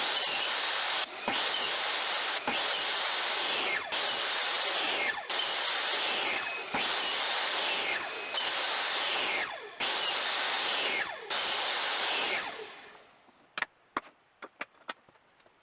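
A tool working wood in even repeated strokes, about one every 1.3 seconds, which stops about twelve and a half seconds in and is followed by a few light clicks.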